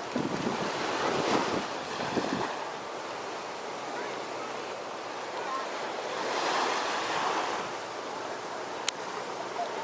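Small waves washing up on a beach, with two swells of surf and a sharp click near the end.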